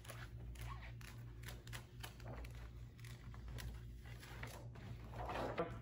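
Faint rustling and crinkling of a vinyl stripe and its paper as it is handled, with scattered light clicks over a steady low hum. A louder rustle comes near the end.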